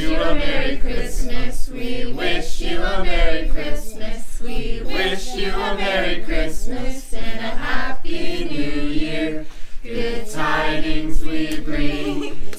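A group of men and women singing a Christmas carol together, unaccompanied.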